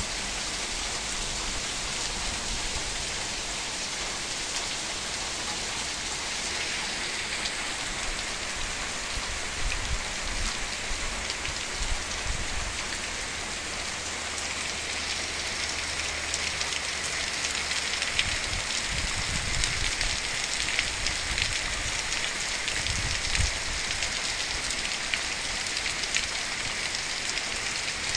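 Heavy tropical rain pouring steadily onto a yard, puddled ground and garden foliage, a dense even hiss, with individual drops ticking close by more often in the second half.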